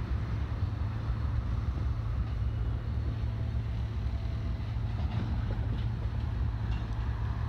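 Double-stack container well cars of a freight train rolling past at a steady speed: a continuous low rumble of wheels on rail.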